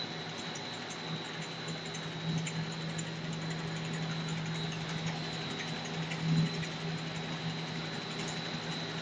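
Machinery of a Bugles-type snack extrusion and forming line running: a steady motor hum with a thin, high-pitched whine over it.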